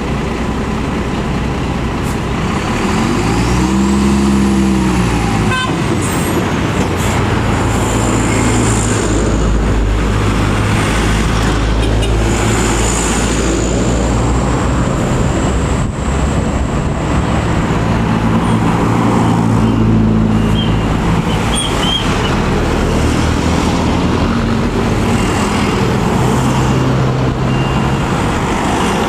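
UD Quester truck's diesel engine running steadily, with a brief rise and fall in engine speed about four seconds in.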